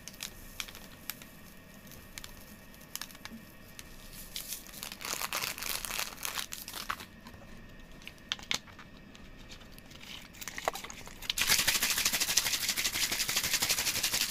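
Borax solution being mixed by hand: scattered clicks and crinkling, a rustle about five seconds in, then from about eleven seconds in a loud, fast run of rattling clicks that lasts about four seconds.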